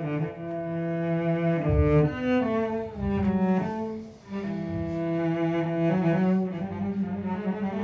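Cello music: a slow line of long, held bowed notes that move from pitch to pitch.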